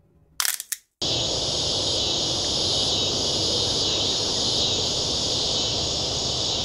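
A quick camera-shutter click sound, then a steady outdoor chorus of insects, crickets among them, with a high trill that pulses about once a second.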